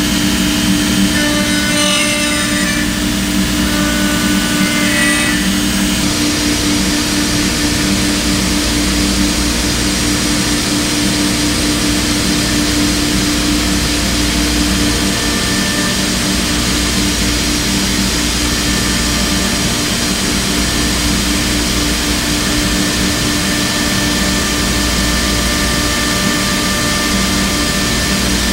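Thermwood CNC router spindle running with its bit carving a wooden leg on the rotary axis: a steady machine hum with hiss. Thin higher tones ride over it for the first few seconds, then the sound settles about six seconds in.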